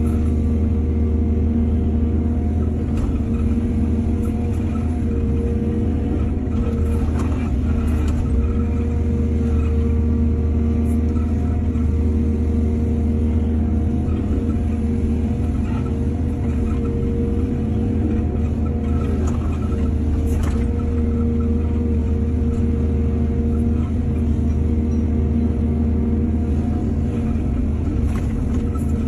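Excavator's diesel engine running steadily at a constant pitch, with a few short knocks scattered through, such as around 7 to 8 seconds in and about 20 seconds in.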